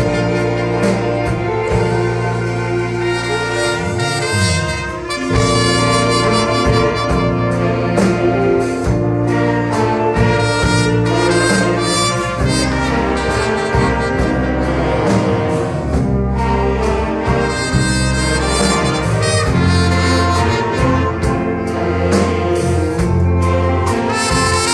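Orchestra with a prominent brass section, trumpets and trombones among it, playing held chords that change every second or so.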